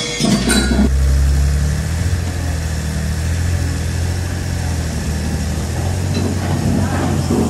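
A low, steady drone that sets in suddenly and holds level, with a deep engine-like hum.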